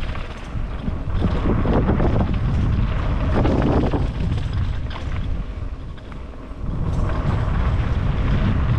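Wind buffeting the microphone over a steady low rumble, easing off briefly a little past the middle before picking up again.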